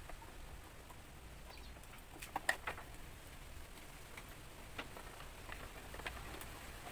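Light plastic clicks and taps from a motorcycle headlight cowl being pressed and fitted back into place by hand, with the loudest cluster about two and a half seconds in.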